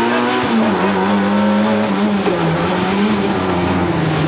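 Rally car engine heard from inside the cockpit at stage pace, its revs climbing and falling as the driver works the throttle and gears, with a sharp drop in pitch about half a second in.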